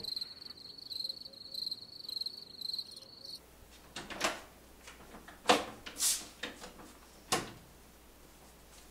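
Crickets chirping in a steady pulsing trill for the first few seconds, then a door being opened and shut: a handful of sharp clicks and knocks, the loudest about halfway through.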